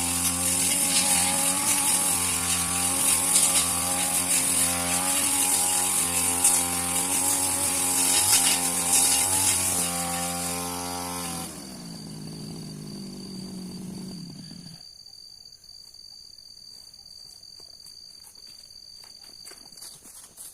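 A grass cutter's small petrol engine runs at steady speed, then about eleven seconds in it drops off throttle, its pitch falls and it dies out a few seconds later. A faint steady high-pitched tone remains afterwards.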